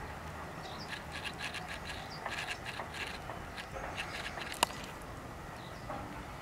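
Faint scraping and rubbing as large whole rohu fish are handled and shifted on a pile, with one sharp click about four and a half seconds in.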